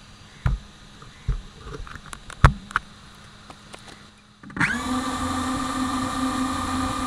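A few knocks, then about four and a half seconds in the DJI FPV drone's motors spin up and run at a steady idle whine, armed on the ground before take-off.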